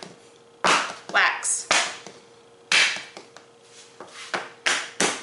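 A silicone mould filled with melted candy melts being rapped hard against the work surface, a series of about seven sharp knocks, to settle the candy and bring air bubbles up to the surface.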